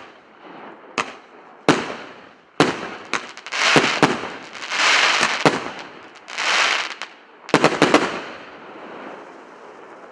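Fireworks going off: sharp bangs of bursting shells about a second apart, with spells of dense crackling hiss in the middle and a quick run of four bangs near the end, after which the sound dies away.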